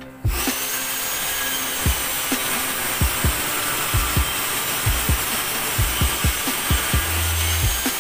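Corded circular saw cutting through a plywood sheet: it starts abruptly a fraction of a second in and runs steadily. Background music with a steady beat plays underneath.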